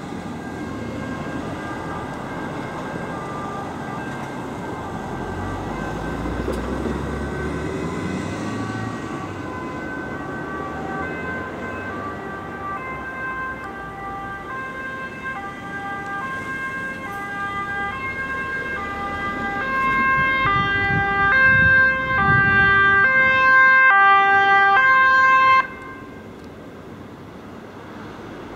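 Ambulance two-tone siren alternating between two notes, faint at first and growing louder as the ambulance approaches, then cutting off suddenly about three-quarters of the way through. Road traffic rumbles underneath.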